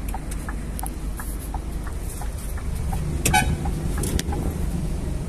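Heavy diesel truck engine running with a steady low rumble, and a short horn toot a little over three seconds in.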